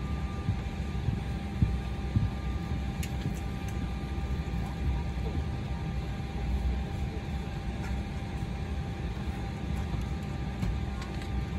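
Steady cabin noise inside an Embraer jet airliner on the ground: a continuous low rumble with two faint steady whining tones, and a few faint clicks about three seconds in.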